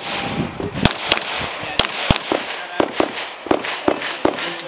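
A pistol fired in a string of sharp shots, mostly in quick pairs about a quarter to a third of a second apart, with short pauses between the pairs.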